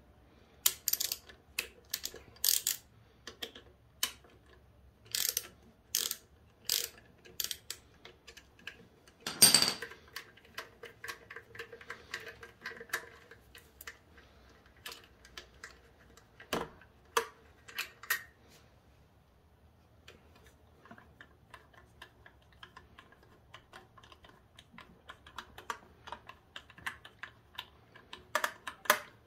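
Hand socket ratchet clicking in short irregular runs as the motorcycle's headlight bracket bolts are worked loose, with light metal clinks of tool and parts. One louder metal clack comes about nine and a half seconds in, and another at about sixteen and a half seconds.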